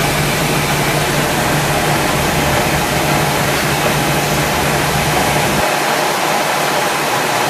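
Toyoda BM 850 CNC vertical machining centre running its spindle: a steady whirring hiss over a low hum. The low hum drops out a little over halfway through while the hiss carries on.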